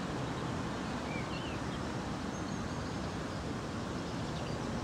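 Steady outdoor background noise with a low rumble, and a couple of faint bird chirps about a second in.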